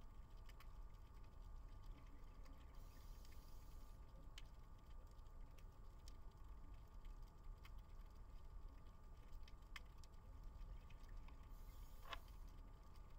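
Faint underwater ambience picked up through a camera's underwater housing: a low rumble with scattered sharp clicks, and two short hisses, a few seconds in and near the end.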